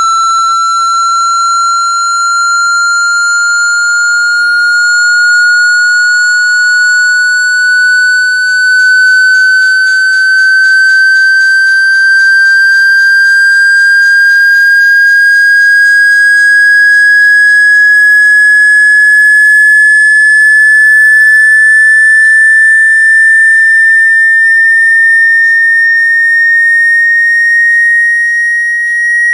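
Loud synthesized water-ejection tone meant to vibrate a phone or earphone speaker and shake water out of it: a single high-pitched pure tone rising slowly and steadily in pitch, with a slow, regular wobble.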